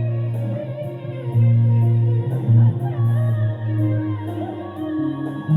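Bass guitar playing sustained low notes that change every second or so, along with a backing music track.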